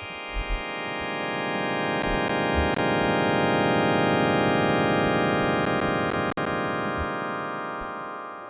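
Synthesized sonification of a galaxy image: a dense electronic chord of many sustained tones that swells up and slowly fades, with a few short low thumps and clicks. It drops out briefly about six seconds in.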